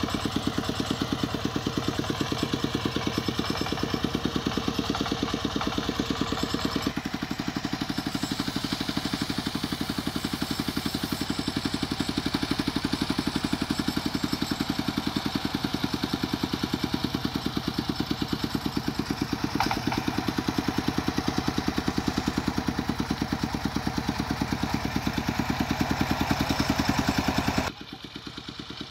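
Single-cylinder diesel engine of a công nông two-wheel-tractor hauler running with a rapid, steady beat of firing strokes. The sound changes character about seven seconds in and drops sharply quieter near the end.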